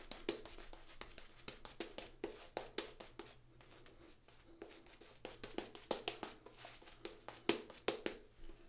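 Synthetic-knot shaving brush working tallow-soap lather over two-day stubble: soft, irregular wet crackling and swishing made of many small clicks, stroke after stroke.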